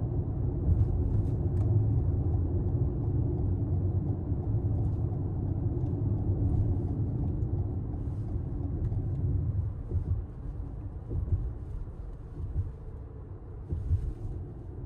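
Road and engine noise heard inside a car's cabin at expressway speed: a steady low rumble that grows quieter about ten seconds in, with a few faint light ticks.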